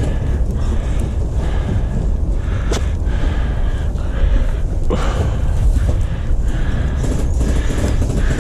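Walking footsteps, about one and a half a second, with rustling and a heavy rumble on the microphone, and a couple of sharp clicks about three and five seconds in.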